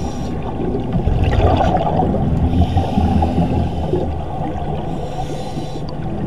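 Muffled underwater sound of scuba breathing: a diver's exhaled bubbles gurgling, swelling about a second in and easing off toward the end.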